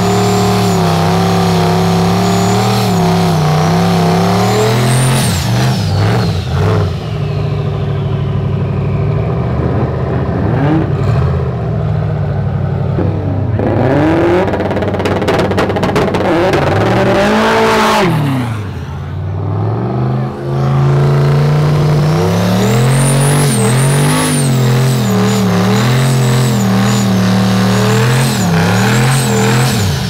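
Turbocharged Fox Body Mustang engine held at high revs during a smoky burnout, its rear tyres spinning on the pavement. The revs waver steadily, with a high whistle rising over the engine now and then. In the middle the revs sweep up and down several times.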